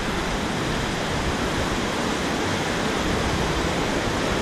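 River water rushing steadily through a narrow rock gorge, an even, unbroken roar of rapids.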